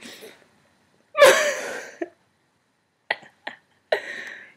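Girls' voices making non-speech sounds: one loud breathy vocal burst about a second in, then a few short bursts of laughter near the end.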